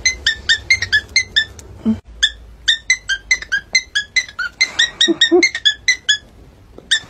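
Cockatiel whistling a fast string of short, clear, slightly falling notes, about five a second, with a short break about two seconds in and another near the end.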